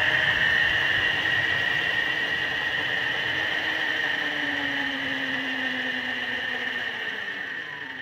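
Large-scale model diesel locomotive ploughing through deep snow, its drive giving a steady high whine over the rumble of snow being pushed aside. The sound fades near the end.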